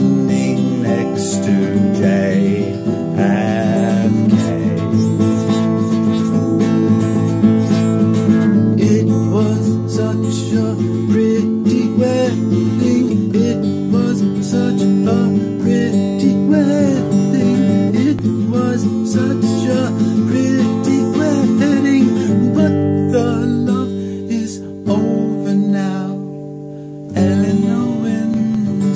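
Acoustic guitar playing an instrumental passage between sung verses. It quietens for a few seconds near the end, then picks up again.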